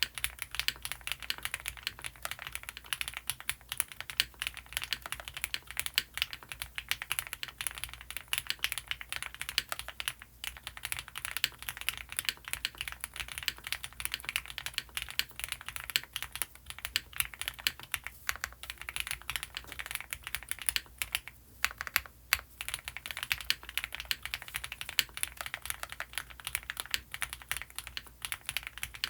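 Fast, continuous typing on a custom mechanical keyboard with lubed Gateron CJ linear switches, EPT plate foam and GMK doubleshot ABS keycaps, giving a dense run of key clacks. The typing breaks off briefly a couple of times about two-thirds of the way through.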